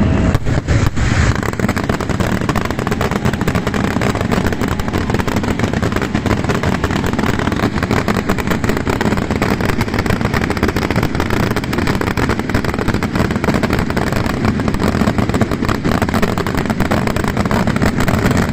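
Fallas castillo fireworks display: a dense, unbroken barrage of rapid fireworks bangs and crackles merging into a continuous rumble.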